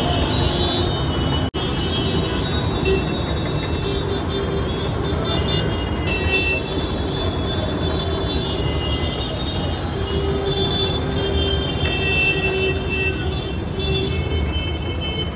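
Steady noise of busy road traffic, with vehicle horns tooting now and then. The sound briefly drops out about a second and a half in.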